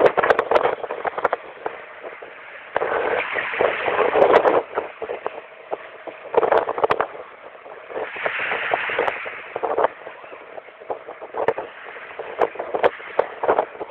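Strong wind and choppy water around a small fishing boat: gusts of rushing noise that swell and fade several times, with frequent knocks and slaps against the hull.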